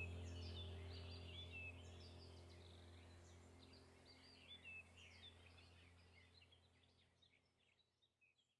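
Birds chirping over a low steady hum, both fading out slowly to near silence.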